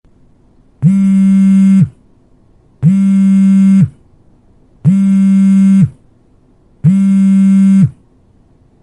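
Mobile phone vibrating with an incoming call, buzzing against a hard surface: four one-second buzzes about two seconds apart, each sliding up in pitch as it starts and dropping as it stops.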